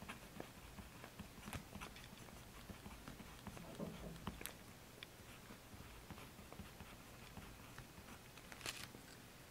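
Faint, scattered light taps and rustles of paper and small craft items being handled, with a short cluster of clicks near the end.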